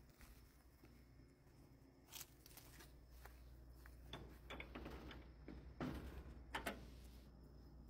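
Near silence, with a few faint scuffs and rustles, the loudest about six seconds in.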